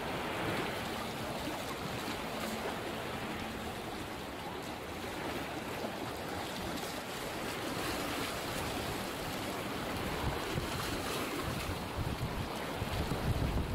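Mediterranean sea waves washing on the beach, with wind buffeting the microphone in low rumbling gusts that grow stronger near the end.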